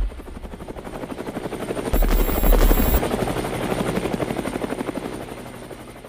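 Helicopter rotor chopping in fast, even beats, swelling up after the song stops and then fading away. A deep low rumble joins it for about a second near the middle.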